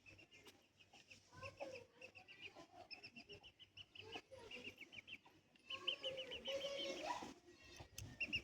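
Chickens clucking: fast runs of short, high repeated calls that grow louder about six seconds in.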